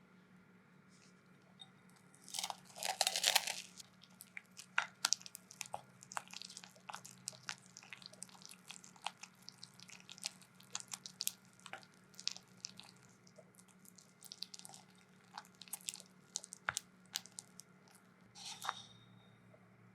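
Food preparation: many small, irregular clicks and taps of kitchen utensils, with a louder crunchy scraping burst about two seconds in and a shorter one near the end.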